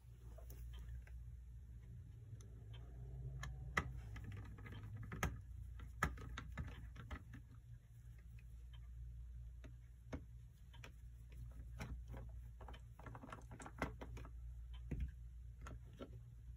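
Small screwdriver and metal parts clicking and tapping against a Telechron clock movement while the screws holding its rotor and coil are undone: irregular light clicks, thicker toward the end, over a steady low hum.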